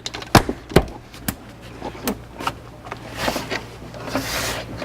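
Plastic interior trim pieces and their clips being handled and pressed into place: several sharp clicks and knocks in the first second and a half, then a scraping rustle of plastic against the body near the end.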